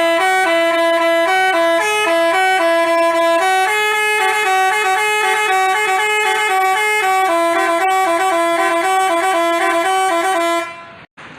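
Telolet basuri multi-tone bus horn playing a tune, its notes stepping up and down in two parts, then cutting off shortly before the end.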